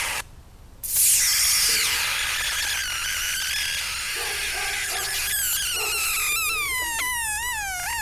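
Electric arc between graphite electrodes running on 36 volts of car batteries, a harsh hiss with whistling tones that slide and waver in pitch. It breaks off just after the start and strikes again about a second in.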